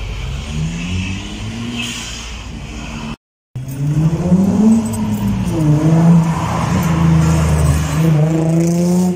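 Car engines driving past: one engine accelerating with rising pitch, a brief dropout, then a louder car engine revving up and down, climbing in pitch near the end as it accelerates.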